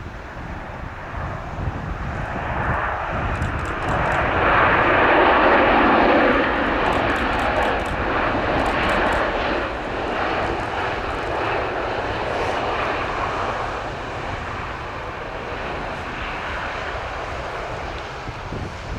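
A landing airplane's engines passing close by, the rushing engine noise building to a peak about five seconds in and then slowly fading as it goes past.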